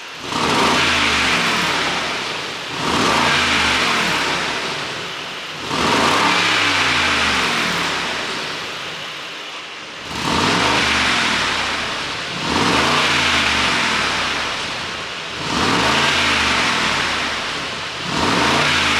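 2019 Mercedes-AMG G63's twin-turbo 4.0-litre V8 revved sharply seven times, each rise in revs followed by a slow fall in pitch with crackling. The exhaust is tuned to pop and crackle on overrun.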